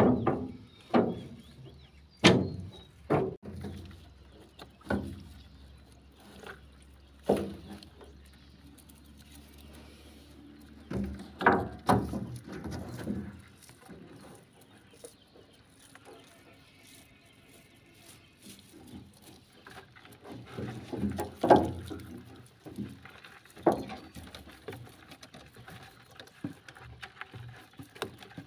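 Irregular knocks and thumps from a small boat's hull as green nylon net traps are handled on board, with the rustle of the netting between them. The loudest knocks come in a cluster near the start and again about two-thirds through.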